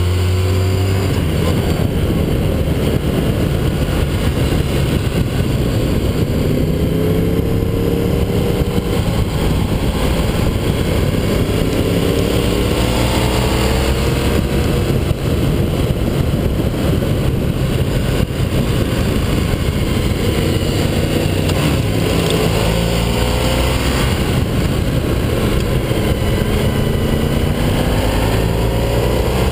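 Sport motorcycle riding at speed, its engine running under heavy wind rush on the low-mounted camera's microphone. The engine note climbs in pitch several times as the bike accelerates, over a steady low drone.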